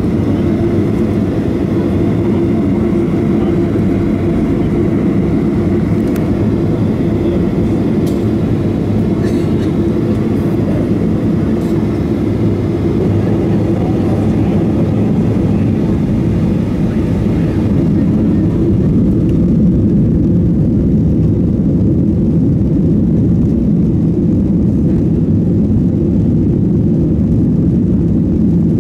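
Boeing 737-800 cabin noise while taxiing: a steady low rumble from the CFM56-7B engines at taxi power and the rolling airframe, heard from inside the cabin. About two-thirds in it turns a little louder and duller.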